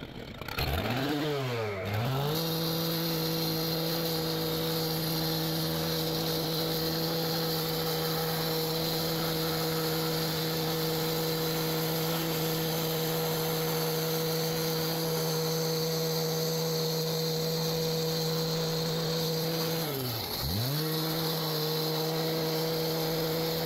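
Stihl gas cut-off saw (two-stroke concrete saw) revving up unsteadily over the first two seconds, then running at a steady high pitch as its blade cuts through a concrete sidewalk. About twenty seconds in, the revs drop sharply and pick straight back up.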